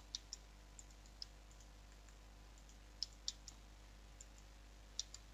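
Faint, scattered clicks of a computer mouse and keyboard, about ten in a few seconds, over a low steady hum.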